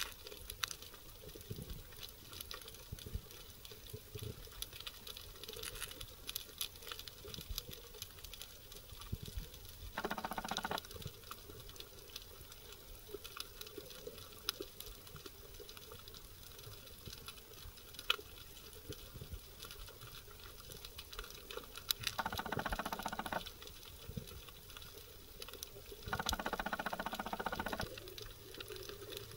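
Underwater sound: a constant crackle of tiny clicks, with three louder buzzing stretches of about a second each, one near the middle and two near the end.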